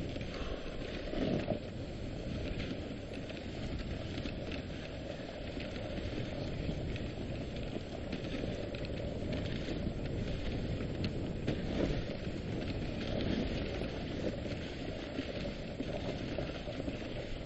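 Dog sled runners sliding over a snowy trail behind a running team: a steady rushing, scraping noise with fine crackle, and a couple of louder bumps about a second and a half in and about twelve seconds in.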